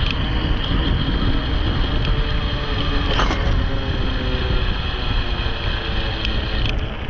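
Wind rushing over the microphone of a moving electric bike, with a steady high-pitched electric motor whine that cuts off shortly before the end. A brief bump about three seconds in.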